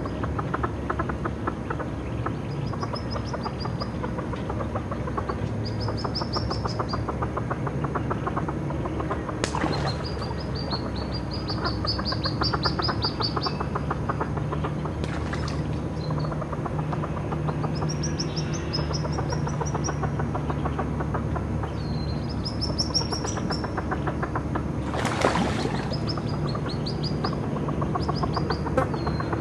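Hooded merganser ducklings peeping: repeated short series of high-pitched peeps, on and off, over a steady low rumble. Two brief sharp noises stand out, about a third of the way in and again near the end.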